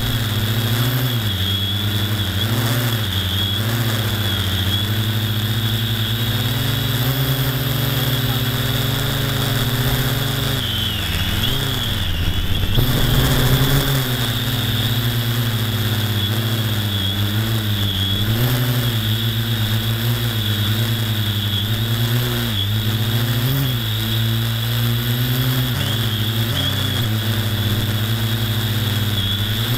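Small electric motor and propeller of a radio-controlled aircraft running right by its onboard camera, with a steady high whine over a hum that rises and falls slightly as the throttle changes. About halfway through the pitch dips briefly while the rushing noise swells.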